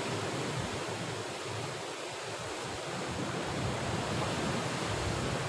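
Sea surf washing against the rocks below a cliff, a steady rushing noise, with wind rumbling on the microphone.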